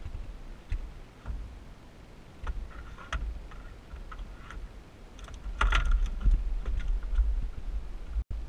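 Wind rumbling on the camera microphone, with scattered light clicks and taps of gear being handled on a boat's fiberglass deck and hatch. The sound cuts out for an instant near the end.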